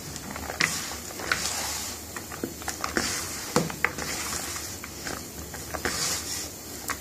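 Gram flour being spooned into and mixed through sliced onions in a bowl for onion bhaji batter: irregular light clicks and taps against the bowl with soft rustling of the coated onions.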